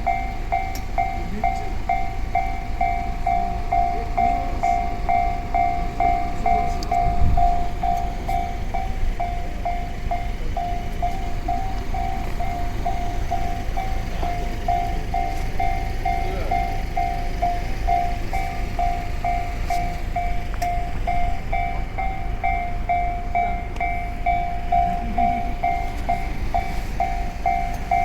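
Japanese railway level-crossing warning bell ringing in rapid, evenly repeated dings without a break, over a passing train's low rumble, with one low thump about seven seconds in.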